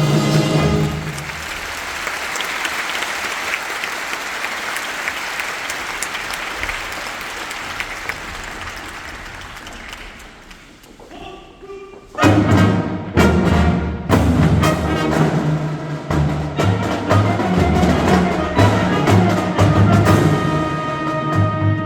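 A band's music stops and an audience applauds, the clapping fading away over about ten seconds. About twelve seconds in, a marching band of brass and drums starts playing loudly.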